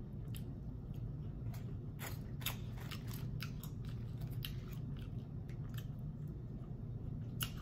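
Close-miked chewing of a mouthful of food, with many small crisp crunches and mouth clicks.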